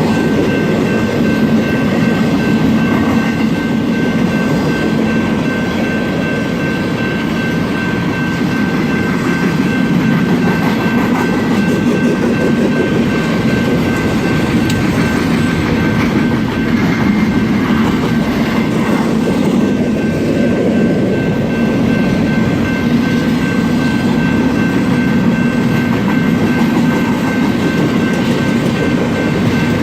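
A long BNSF freight train of empty intermodal cars rolling past, with steady wheel-on-rail rumble, a clickety-clack over the rail joints and a thin, steady high ringing tone.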